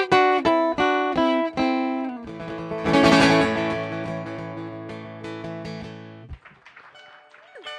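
Mandolin ending a song: a run of single picked notes, then a final strummed chord about three seconds in that rings out and fades away.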